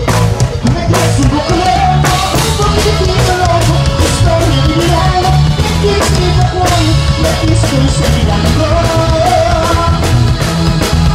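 Live band playing loud: drum kit, keyboard and a heavy low end with a steady beat, and a singing voice over it.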